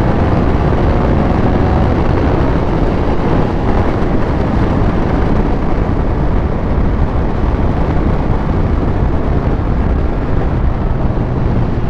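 Triumph Speed Triple 1200 RS's inline three-cylinder engine running under way at speed, mixed with heavy wind rush on the microphone. A steadier engine note shows in the last few seconds.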